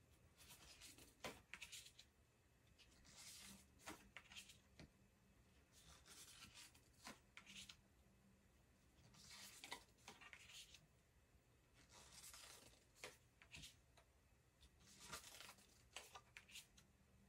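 Soft sliding and rubbing as paper tarot cards are drawn one at a time from the deck and laid onto a pile on a wooden table. Each card gives a brief swish with sharp clicks and taps as it is set down, about every three seconds.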